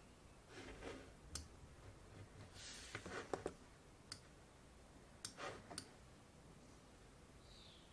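Faint, irregular clicking of a computer's pointing device, about half a dozen clicks, with a few soft brushing sounds between them.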